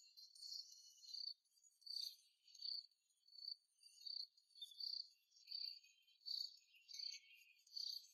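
Faint, high-pitched insect chirping, repeating at an even pace of about three chirps every two seconds.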